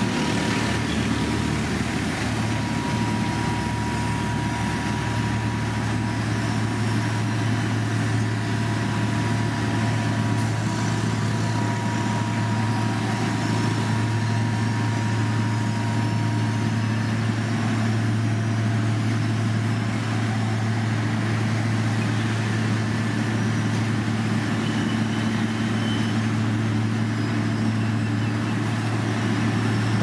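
Heavy diesel road-construction machinery running steadily: an even, low engine drone with no revving, and a faint thin whine that fades out after about two-thirds of the way through.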